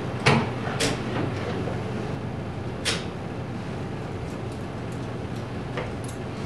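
A door being unlocked and opened: a few sharp clicks of key, lock and latch, spread over several seconds, over a steady low hum.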